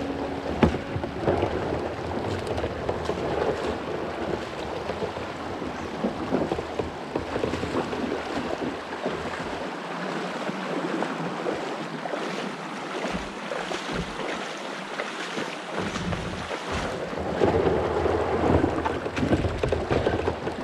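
Water splashing and sloshing around a kayak on the river, with irregular small splashes, and wind buffeting the microphone.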